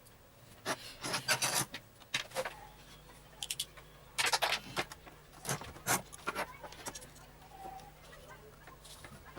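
Irregular bursts of rubbing and scraping with light clicks, as parts of a hair dryer are handled and worked on by hand; the dryer's motor is not running.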